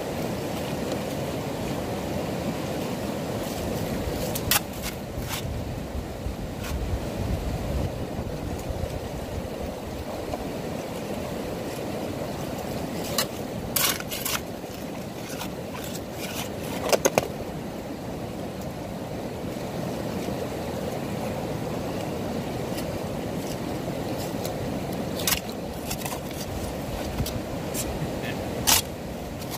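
Metal shovel digging into loose river gravel and cobble, scraping through the gravel with sharp clinks and knocks as the blade strikes stones, several times. A steady low rushing sound runs underneath.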